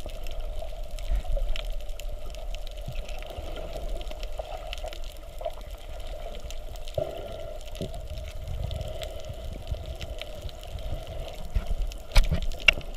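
Underwater sound heard from below the surface while snorkeling: a steady muffled rush of water with a low rumble and scattered small clicks, and a few sharper knocks near the end.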